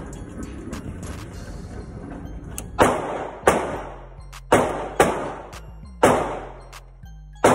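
Gunshots echoing in an indoor shooting range: about six sharp reports at uneven intervals in the second half, each ringing out and fading over about a second. Quieter background music and a low hum run underneath.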